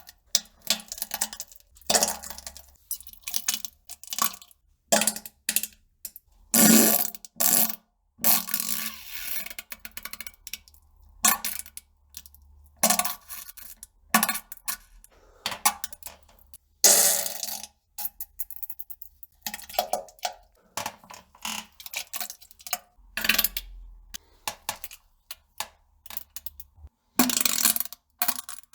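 A string of fart and poop sound effects: irregular bursts of varying length, some short and some lasting a second or more, separated by brief silences.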